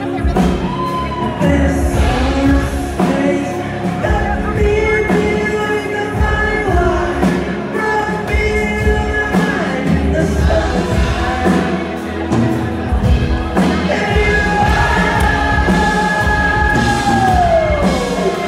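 Live rock band playing with a male lead vocal over drums. Near the end a long held note bends downward.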